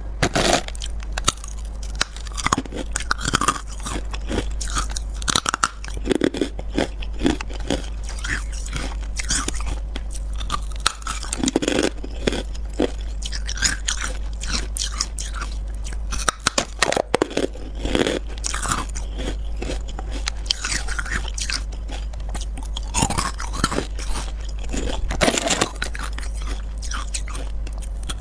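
Carbonated white ice being bitten and chewed right at a clip-on mic: bite after bite of irregular sharp crunches and crackles.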